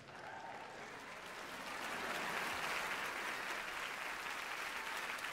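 Large studio audience applauding, swelling over the first two seconds and then holding steady.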